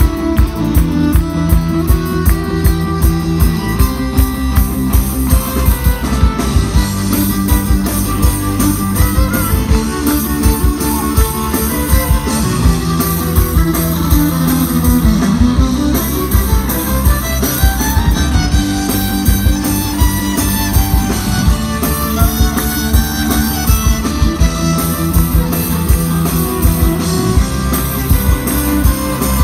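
Folk-punk band playing live and loud: fiddle over electric guitars, with a steady driving drumbeat.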